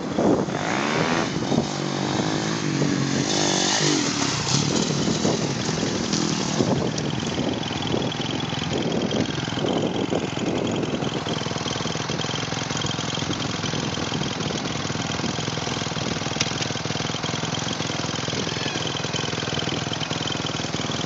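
Dirt bike engine revving up and down, loudest in the first ten seconds or so, then settling into a steadier engine drone.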